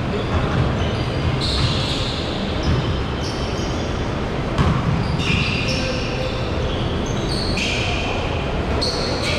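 Pickup basketball in a large gym: a ball bouncing on the hardwood court and sneakers giving several short, high squeaks, echoing in the hall.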